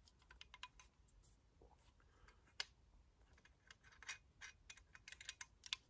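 Faint, scattered clicks and scrapes from hands working the lock and hinge of a Silky Katana Boy 650 folding saw while trying to open it, with one sharper click about two and a half seconds in.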